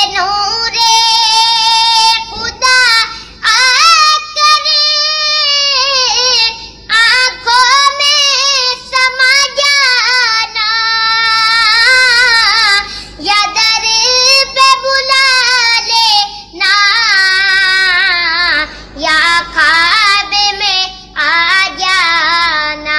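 A young boy singing a naat, an Islamic devotional song, unaccompanied in a high voice, with long wavering held notes and short breaks between phrases.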